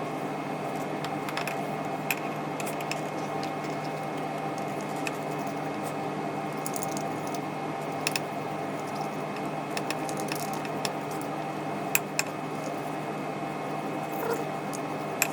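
Wet squishing and scrubbing as a motorcycle brake caliper is washed with petrol, with a few light clicks scattered through.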